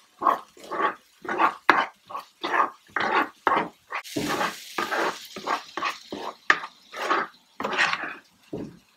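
Plastic spatula stirring and scraping a thick tomato-onion masala in a non-stick wok, about two strokes a second, with a burst of sizzling around four seconds in as the ginger-garlic paste is roasted.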